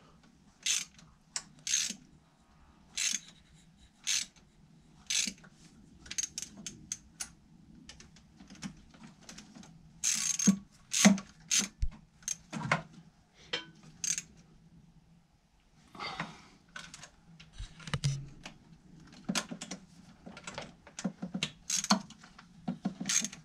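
Hand ratchet clicking in short irregular runs, with sharp metallic clinks of tools and parts, as bolts are run in on a car engine.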